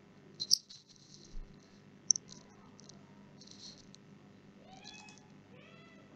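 Computer mouse clicks on a desk: two sharp clicks about half a second and two seconds in, with lighter ticks after. Near the end come two short, faint, wavering calls.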